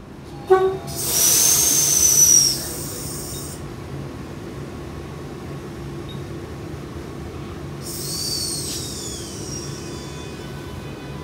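Queensland Rail electric train standing at a platform, its equipment giving a steady low hum. A short beep sounds about half a second in. A loud burst of hissing follows for about two seconds, and a fainter hiss comes near the end.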